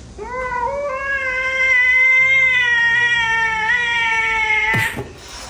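Orange tabby cat's long, drawn-out yowl at another cat, rising at the start and then held on one pitch for about four and a half seconds, followed by a short harsh burst near the end.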